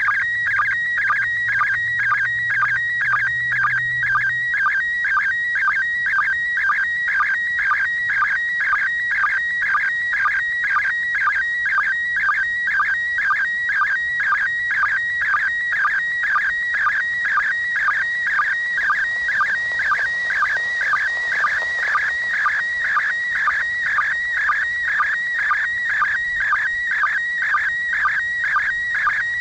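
Slow-scan television (SSTV) image signal from the International Space Station in PD120 mode, heard through the speaker of a Yaesu FT-60 handheld FM radio. It is a warbling tone around 2 kHz that repeats evenly about twice a second, each repeat one pair of scan lines of the picture being sent.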